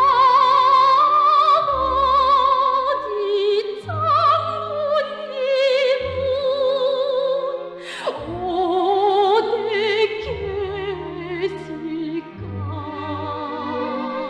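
Operatic solo singing with a wide vibrato, held notes sliding from one to the next, over an orchestral accompaniment with a low bass line.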